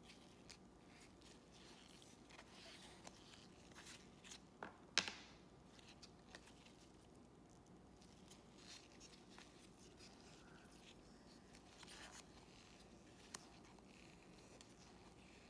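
Faint rustle and soft clicks of a stack of trading cards being flipped through by gloved hands, with one sharper click about five seconds in.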